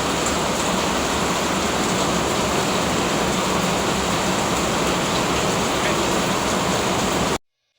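Heavy rain pouring down in a steady, even hiss that cuts off suddenly near the end.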